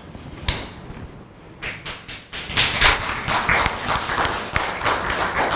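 Audience applause: a few scattered claps at first, then dense clapping from about halfway through.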